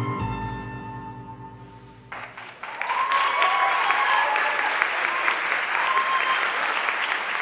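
The dance track's last held notes fade away. About two and a half seconds in, an audience breaks into loud, sustained applause.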